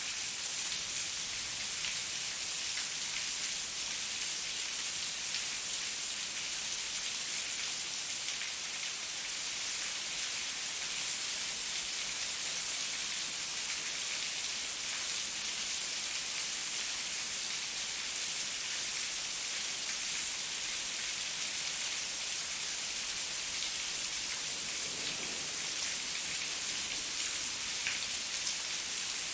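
Heavy rain falling steadily, a dense even hiss of drops hitting surfaces, with scattered individual drop ticks.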